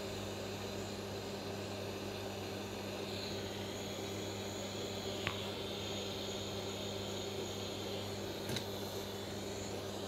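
Small butane gas hot-air tool hissing steadily as it shrinks heat-shrink tubing onto a coax cable, over a low steady hum. A couple of light clicks come about halfway through and again a few seconds later.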